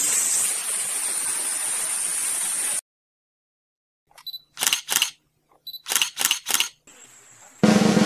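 A steady hiss cuts off abruptly. After a moment of silence comes a quick run of camera-shutter clicks in two clusters of about three. Drum-led background music starts near the end.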